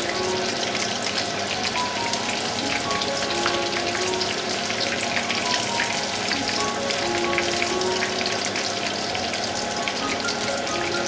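Crumbed trevally pieces deep-frying in hot oil in a pan: a dense, steady crackling sizzle.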